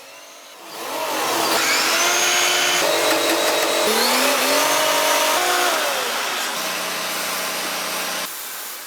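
Factory machinery running: a steady hiss and whir with several whining motor tones that rise, fall and change pitch, cutting off suddenly near the end.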